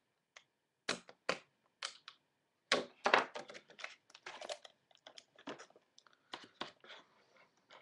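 Packaging being torn and crinkled open by hand: irregular crackling and rustling in short bursts, loudest about three seconds in.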